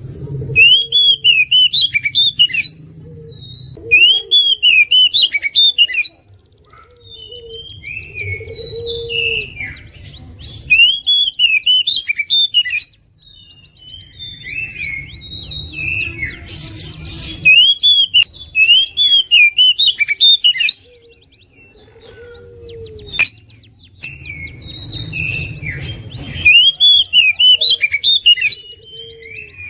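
Oriental magpie-robin singing loudly in full song: a series of ringing phrases, each of quick up-and-down whistled notes, repeated every few seconds, with fast rattling note runs and softer calls in between.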